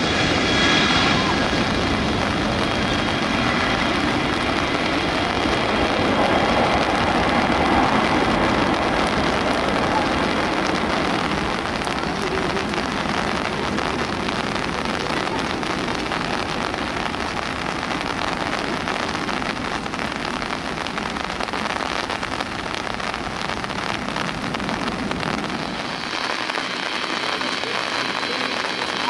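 Heavy rain pouring down as a steady hiss. The engine roar of a jet airliner that has just taken off fades into it at the start, its whine dying away in the first second or so.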